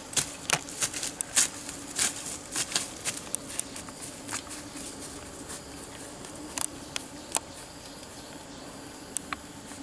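Footsteps crunching and rustling through grass, leaf litter and undergrowth, with irregular sharp crackles that grow sparser and fainter after about four seconds as the walker moves away.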